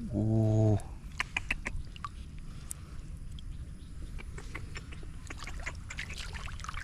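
Small splashes and drips of shallow water, many scattered ticks, as hands work through a flooded field. A short, steady low hum about 0.7 s long comes first and is the loudest sound.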